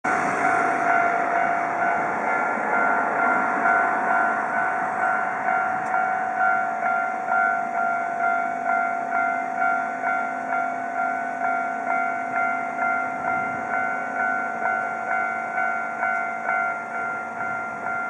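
Japanese level crossing's electronic warning bell ringing steadily, about one and a half strikes a second, signalling that a train is approaching and the crossing is closing. A vehicle passes over the crossing in the first few seconds.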